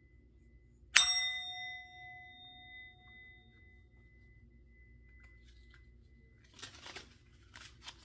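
A bell struck once about a second in, ringing out in a bright, clear chime that fades away over two to three seconds. Beneath it, a faint, slowly pulsing high ring lingers from an earlier strike. Near the end come a few soft rustling clicks.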